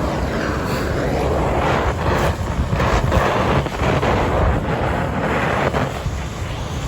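Oxy-fuel cutting torch making a plunge cut in 1/4-inch steel plate: a loud hiss with irregular crackles, dropping to a quieter hiss about six seconds in.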